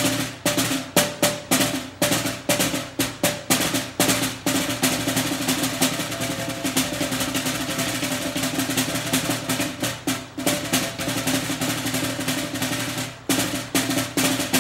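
Snare drum fitted with a Pearl Muffle Head, played with sticks: separate strokes for the first few seconds, then a continuous roll with a brief break about ten seconds in, and a few more strokes near the end. The head gives a bouncy snare sound with a lot of the usual bite taken out, at a lower volume.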